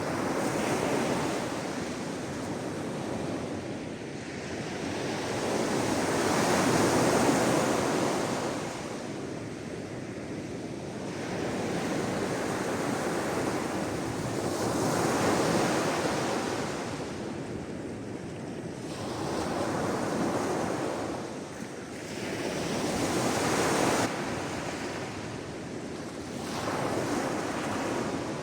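Sea waves breaking and washing onto the shore, the rush of surf swelling and fading every few seconds.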